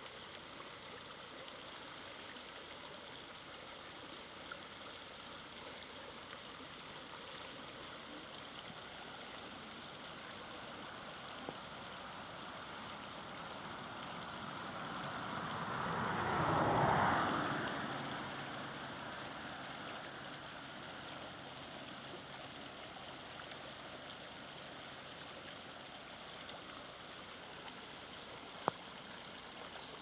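Small rocky stream flowing, a steady rushing, gurgling wash of water. About halfway through, a broader rushing sound builds up over several seconds to the loudest point, then fades away.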